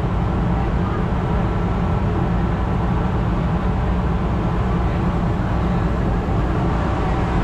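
Steady low rumble of a car-passenger ferry's engines, heard on deck while under way.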